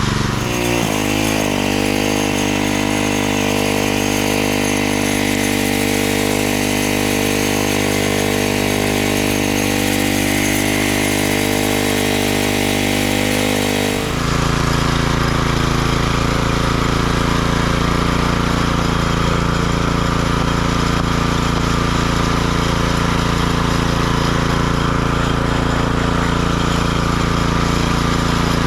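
Small petrol engine running at a steady speed, with an abrupt change in its sound about fourteen seconds in.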